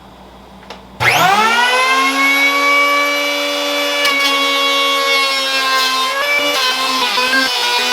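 Wen 3-1/4-inch electric hand planer switched on with a click, its motor spinning up to a high, steady whine. About five seconds later the pitch starts to waver as the planer is pushed through the wood.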